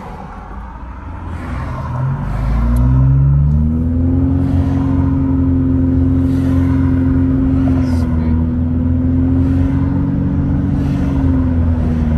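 Car engine heard from inside the cabin, rising in pitch as the car accelerates about two seconds in, then running steadily at cruising speed over low road rumble.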